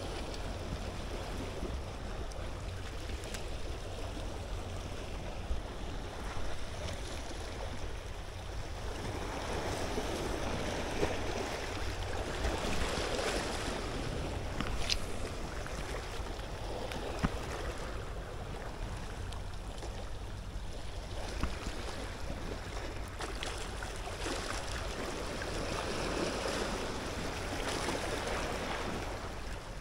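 Sea water washing and lapping, swelling up twice, under a steady low wind rumble on the microphone, with a few light clicks.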